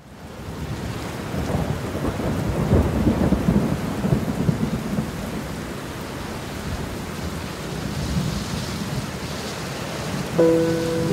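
Heavy rain pouring with low, rolling thunder, the rumble strongest from about two to five seconds in. Near the end a few sustained musical notes come in over the rain.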